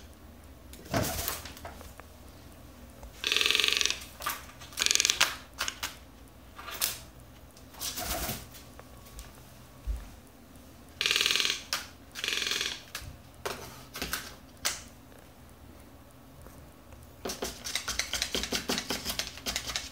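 A toucan handling small paper and plastic items with its bill on a countertop: scattered knocks and short rustling bursts, then a quick run of light taps near the end.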